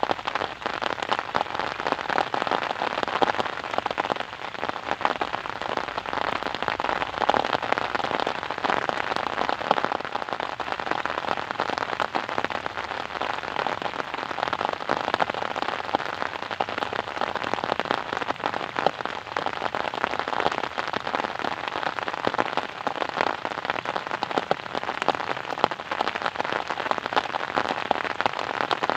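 Steady rain falling, a dense even hiss of many drops with frequent sharp pattering hits from drops striking a surface.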